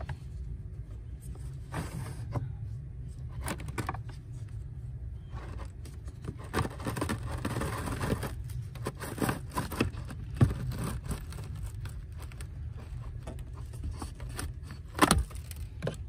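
Plastic cabin air filter cartridge scraping and knocking against its housing behind a 2001 Honda Civic's glovebox as it is worked loose and slid out, with scattered clicks and a couple of sharper knocks. A steady low hum runs under it.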